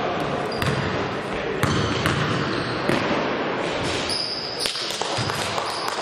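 A basketball bouncing on a hard court floor, with sharp bounces about once a second. Short high shoe squeaks come in over the last couple of seconds, over the chatter of players' voices.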